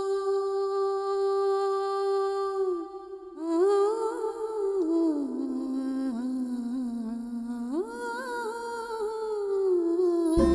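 A woman's voice humming a slow, wordless melody, unaccompanied: one long held note, a short break about three seconds in, then a phrase that glides up and down.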